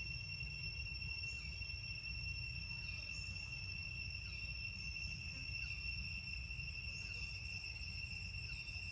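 Insects droning in one steady, high-pitched tone, with a short falling chirp repeating about every second and a half, over a low rumble.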